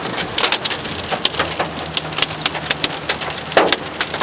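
Heavy rain pelting down, with many sharp, irregular drop impacts striking close to the microphone.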